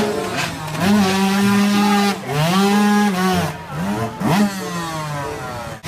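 Dirt bike engine revving hard in several long pulls, its pitch rising and falling, as the bike sits bogged in deep mud with the rear wheel spinning.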